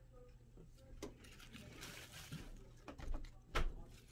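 Soft rustling of lettuce leaves and a few light knocks as pet rats move about and feed inside a potted lettuce plant, the loudest knock about three and a half seconds in, over a low steady hum.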